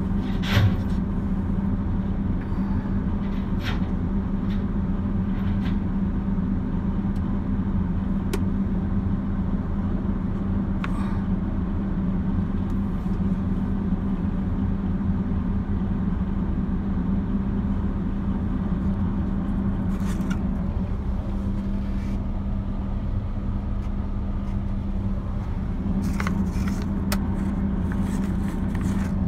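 Heavy diesel engine idling steadily with a constant low hum, with a few short sharp knocks, the loudest just after the start.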